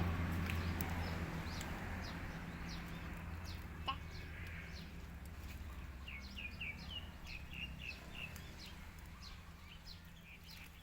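Chickens clucking, with a run of short high chirps in the second half. Under them a low steady hum fades away over the first few seconds.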